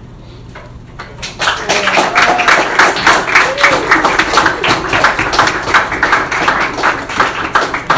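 Audience applauding, breaking out about a second in and staying loud and dense.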